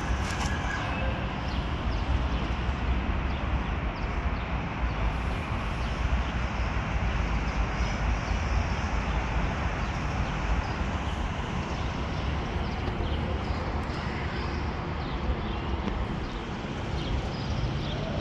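Steady street ambience: an even low rumble with a light hiss above it, with no distinct calls or knocks standing out.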